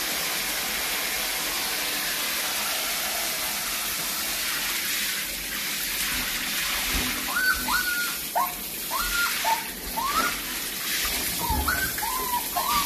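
Water spraying from a hose onto a tiled floor makes a steady hiss. From about halfway in, puppies whine over it in about a dozen short, high whines in quick succession.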